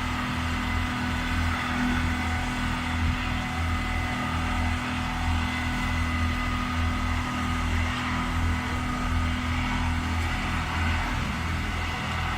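MADROG Madpatcher pothole-repair machine running steadily: a low, pulsing engine hum under several steady higher whining tones from its air-blowing and spraying equipment. One humming tone drops out near the end.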